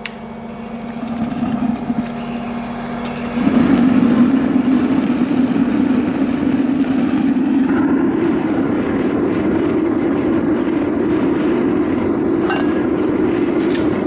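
Diesel-fired foundry furnace burner lighting up with its blower on low. About three and a half seconds in, the sound jumps louder as the burner catches, then settles into a steady rushing flame noise over the blower's hum.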